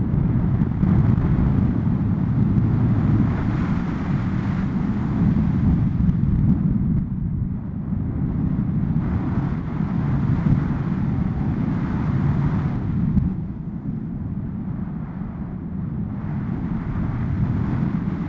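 Rushing air from a paraglider in flight buffeting the camera's microphone: a loud, low wind rumble that swells and eases every few seconds.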